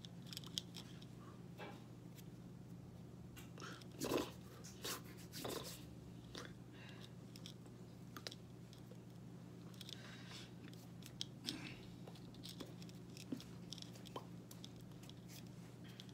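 Faint scattered clicks and smacks from a person's hands and mouth while signing, over a steady low hum, with a couple of louder smacks about four and five and a half seconds in.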